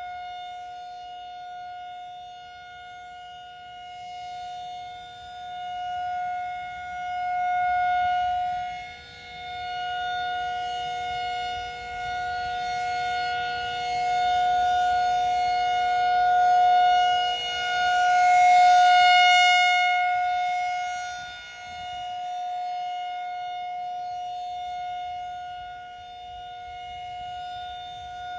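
Federal Signal 2001 rotating outdoor tornado siren sounding a steady tone on its monthly test. The pitch holds constant while the loudness swells and fades every few seconds as the rotating horn sweeps past.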